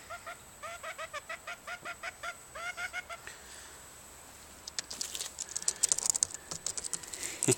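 Bantam chickens clucking in a quick run of short pitched notes, about six a second, which stops a little after three seconds in. From about five seconds in there are scratchy clicks and rustles.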